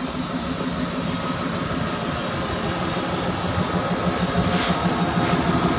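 Sumitomo 280FJ1 excavator's diesel engine running steadily, getting a little louder about four seconds in, with a couple of short hisses near the end.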